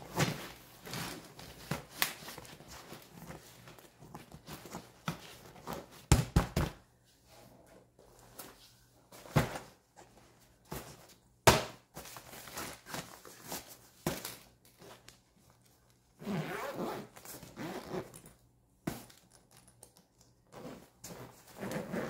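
Compression packing cubes and clothes being handled in an open hard-shell carry-on suitcase: fabric rustling, scattered knocks and soft thumps as the cubes are pressed down, and a zipper being worked. Two sharper knocks stand out, about six seconds in and around the middle.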